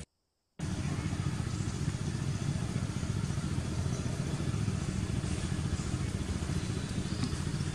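An engine running steadily, a low rumble that sets in about half a second in, after a brief gap of silence.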